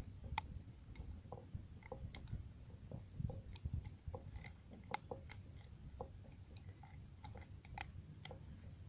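Irregular faint clicks and rustles of hands working a caught pike free from a wire-framed mesh net and fishing line, over a low rumble of handling noise.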